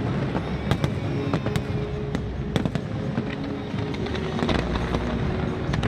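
Fireworks display: sharp bangs and crackles at irregular intervals, over music with held notes.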